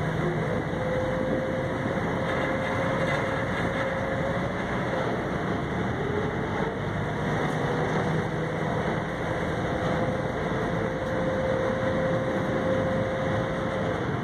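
Steady drone of a boat under way: engine hum with a faint held tone, over rushing water and wind.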